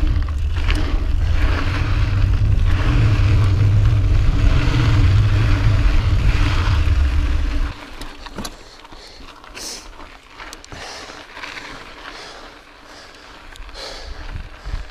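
Pivot Mach 429 Carbon mountain bike rolling fast down a dirt singletrack: tyre noise over dirt and gravel under a heavy low wind rumble on the chest-mounted camera's microphone. About halfway through the rumble drops away, leaving quieter tyre crunch with scattered clicks and rattles from the bike.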